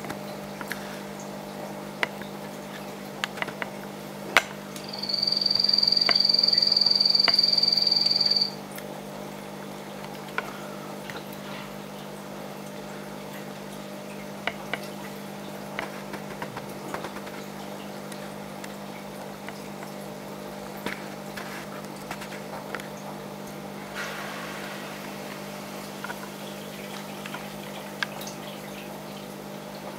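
Aquarium pump humming steadily, with water trickling and scattered small ticks. About five seconds in, a loud steady high-pitched tone sounds for about three and a half seconds, then stops suddenly.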